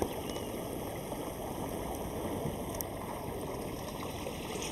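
Steady rushing background noise, with a faint short chirp about a third of a second in.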